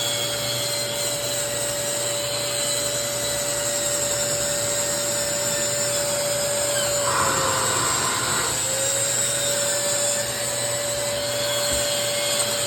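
Wen drywall sander running steadily together with the vacuum that draws off its dust, a constant motor hum over an airy hiss. About seven seconds in, the motor pitch dips briefly and comes back up while a brief scratchy sanding sound rises.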